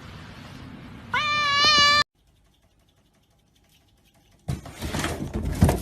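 A cat's drawn-out, wavering meow lasting about a second, cut off abruptly. After a couple of seconds of near silence, a loud stretch of noisy clatter with clicks comes near the end.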